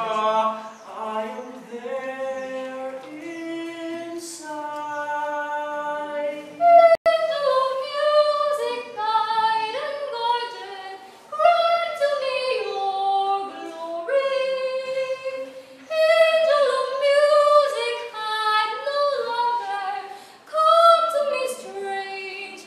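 A young woman singing unaccompanied, a melody of held notes that climbs higher after the first few seconds. There is a single sharp click about seven seconds in.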